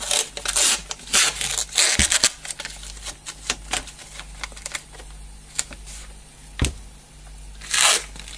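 Brown adhesive tape being handled on a table: crinkling and rubbing of the tape in the first two seconds, then scattered light clicks and a single thump. Near the end a strip is pulled off the roll with a short ripping sound.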